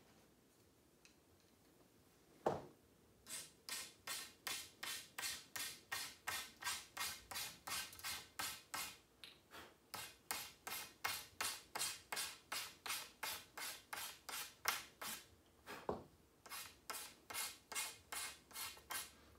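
Rhythmic rasping strokes, about two and a half a second, with a sharp knock just before they start. About three-quarters of the way through they stop briefly, another knock comes, and they start again.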